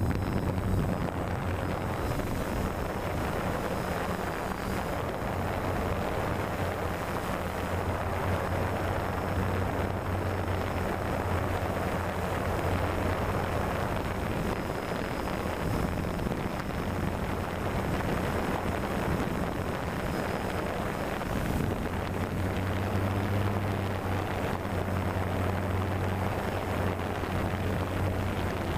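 DJI Phantom quadcopter's propellers and motors humming steadily, heard from the camera riding on the drone, over a rush of air; the low hum swells in stretches and dips briefly about two-thirds of the way through as the motors change speed.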